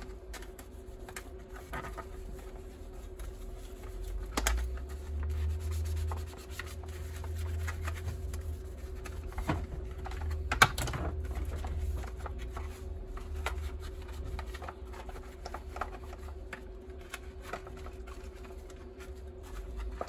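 Sponge scrubbing a plastic washing machine detergent drawer with washing-up liquid: irregular rubbing and small clicks and knocks of the plastic being handled and turned, with one sharper knock about halfway through.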